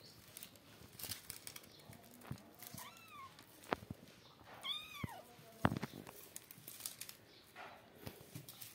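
A kitten meowing twice, short calls that rise and fall in pitch, the second louder and longer. Scattered rustling and light knocks come from kittens tussling among loose onions on a sack.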